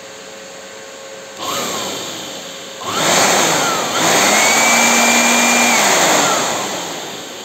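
Handheld electric air blower blasting air onto a graphics card cooling fan, spinning the freshly cleaned and oiled fan to work it in. A short blast about a second and a half in, then a longer, louder one from about three seconds with a whine that rises as it speeds up, holds, and falls away as it fades near the end.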